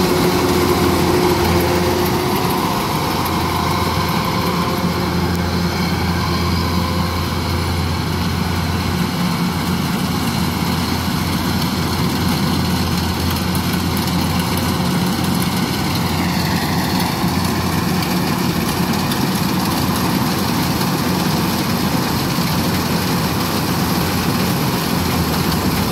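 Kubota DC-93 rice combine harvester running steadily as it cuts rice, its diesel engine making a constant low hum with mechanical clatter. A brief falling whine comes about two-thirds of the way through.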